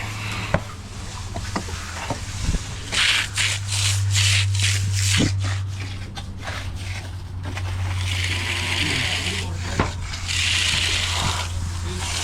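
Push broom scraping across freshly floated concrete to give it a broom finish: a quick run of short scratchy strokes, then two longer hissing sweeps near the end, over a steady low hum.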